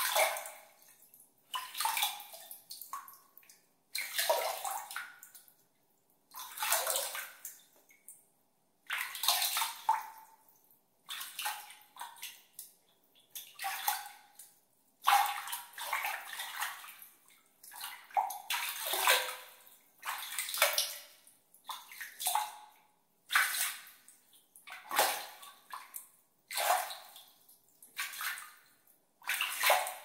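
Water splashed and sloshed by hand in repeated strokes, about one every one and a half seconds, each splash trailing off into a short gurgle before the next.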